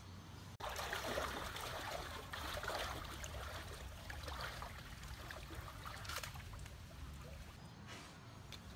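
Water splashing and sloshing as someone wades through a shallow river, starting abruptly about half a second in and going on unevenly.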